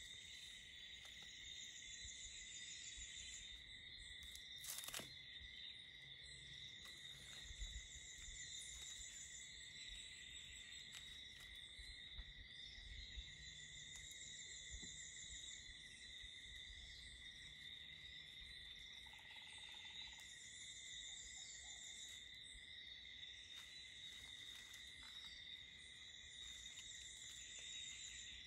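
Faint insect chorus: a steady, unbroken high-pitched trill, with a higher, buzzier insect call coming in bursts of about two seconds every few seconds. A single sharp click sounds about five seconds in.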